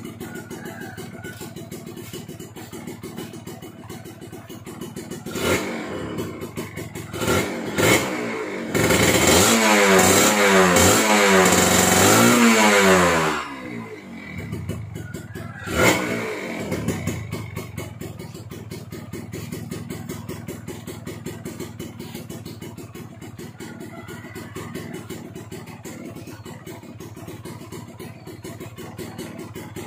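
Kawasaki Ninja RR's 150 cc two-stroke single idling through its stock exhaust with the baffles gutted out (dibedel). It is blipped a few times, then revved hard in a string of rising runs for about four seconds, blipped once more and left to settle back to a steady idle.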